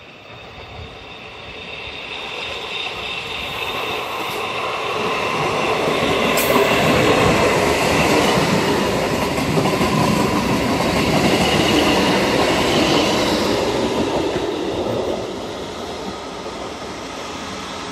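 Trenitalia regional passenger train running past on the rails. The wheel and running noise builds over the first several seconds, stays loud, then drops off about fifteen seconds in. A thin high whine rides over the rumble.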